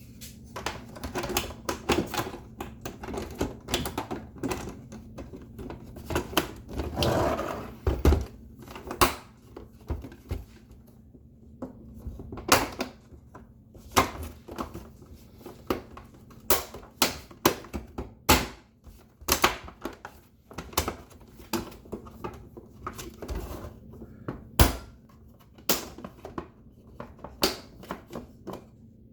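Hard plastic clicking and knocking at an irregular pace as a Hamilton Beach FlexBrew coffee maker's plastic side panel is handled and snapped back into its latches.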